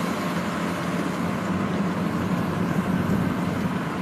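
Kubota rice combine harvester running steadily under load as it cuts and threshes rice: a continuous, even drone from its engine and threshing machinery.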